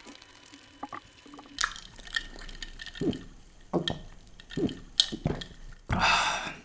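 A person sipping cola through a straw: a series of short sips and swallows, with a loud breathy exhale near the end.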